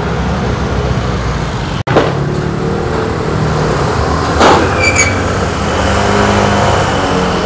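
Street traffic: motor scooter and car engines running and passing, a steady low rumble with shifting engine tones.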